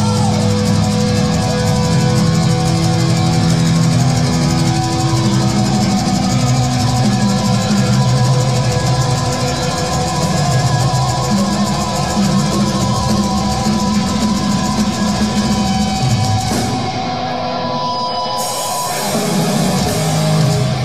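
Thrash metal band playing live: distorted electric guitars over a drum kit, loud and dense throughout.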